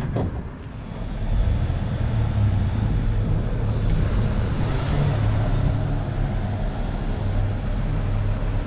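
A motor vehicle driving, with a steady low engine and road rumble that grows louder about a second in and then holds even.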